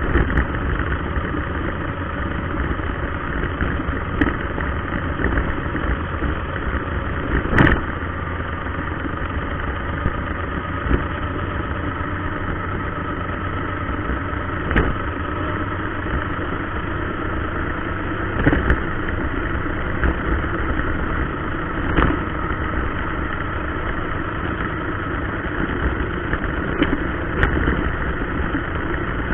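Xinlehong 9125 RC car's brushed electric motor and drivetrain whining steadily, recorded from a camera riding on the car as it drives. A handful of sharp knocks break in every few seconds.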